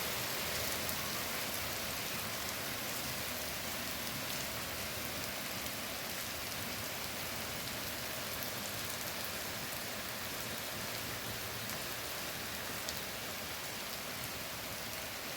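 Steady rain falling in a forest: an even hiss with scattered sharper drip ticks.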